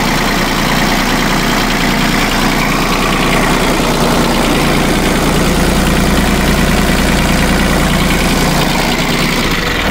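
New Holland TC18 tractor's diesel engine idling steadily. It is running on with the key removed and the battery disconnected, and will not shut off, with something in the ignition wiring smoking.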